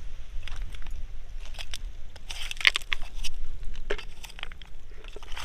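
Irregular crunching and scraping clicks, thickest around the middle, over a steady low rumble.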